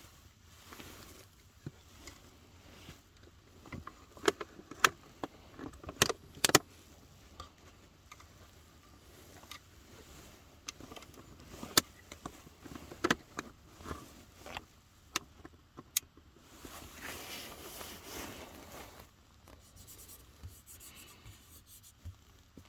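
Scattered clicks, taps and knocks of small objects being handled, with a couple of seconds of rustling about seventeen seconds in.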